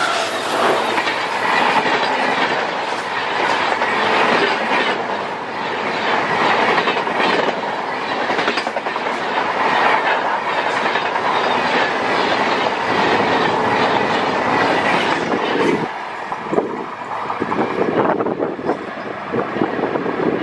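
Express train of LHB passenger coaches passing close by at speed: a loud, steady rush of wheel and rail noise with rapid clickety-clack over the rail joints. About three-quarters of the way through the sound drops as the tail of the train moves away.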